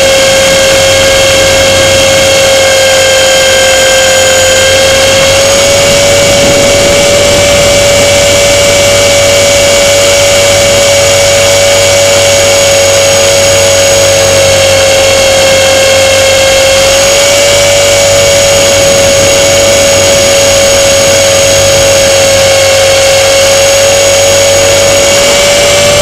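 A radio-controlled plane's motor and propeller running as one steady, very loud whine, heard right at the onboard camera. The pitch steps up slightly about five seconds in and again near the end.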